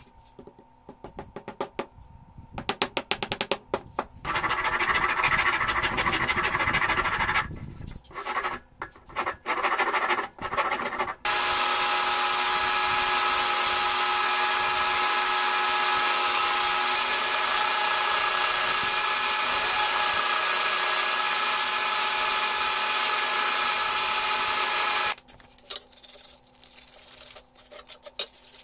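A power drill runs in short spurts and a longer stretch, boring into a wooden knife handle. About eleven seconds in, a portable belt sander clamped upside down starts, running steadily for about fourteen seconds as the wooden handle is shaped against the belt, and then cuts off. Near the end, the handle is sanded by hand in short rubbing strokes.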